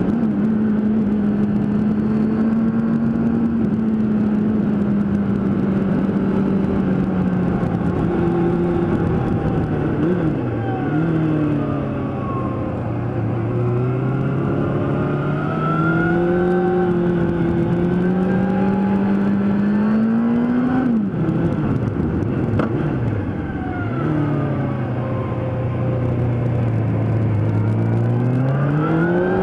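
Onboard sound of a Suzuki GSX-R 750 SRAD's inline-four engine under way, its revs sliding up and down with throttle and gear changes, dropping low twice and climbing again near the end, over a steady rush of wind.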